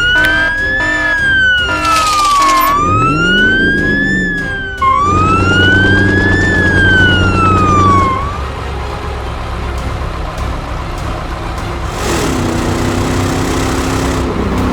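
Emergency-vehicle siren wailing up and down, about three slow wails, fading out after about eight seconds. It gives way to a steady rumbling vehicle engine.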